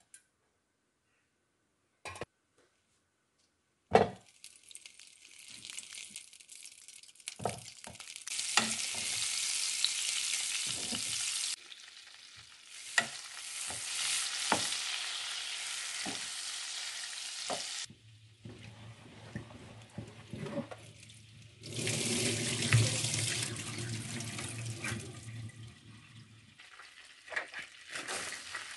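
Hot fat and water sizzling and bubbling in a non-stick pot, stirred with a wooden spoon, with many small knocks and ticks. The sizzle starts after a loud knock about four seconds in, then breaks off and resumes several times.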